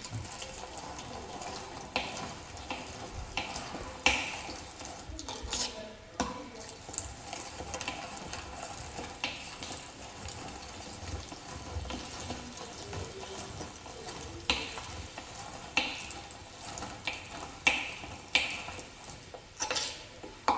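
Hand-cranked plastic meat grinder being turned to mince raw meat: a steady grinding and squishing with irregular clicks and knocks.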